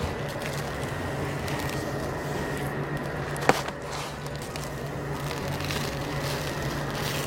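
Coarse rock salt being spread and rubbed by hand over a whole slab of beef ribs, over a steady low hum, with one sharp knock about three and a half seconds in.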